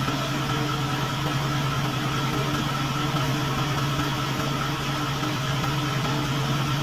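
Isuzu Forward truck's diesel engine running steadily at a constant pitch, an even mechanical hum with no change in speed.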